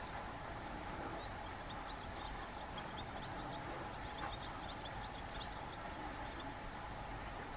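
Outdoor ambience: small birds twittering faintly and continuously over a steady low rumble and hum, with no pheasant call or wing-drumming.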